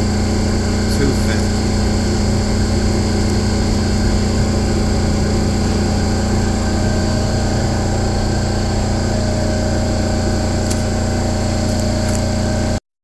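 Steady drone of running machine-shop machinery: a loud, even hum with several constant tones, cutting off suddenly near the end.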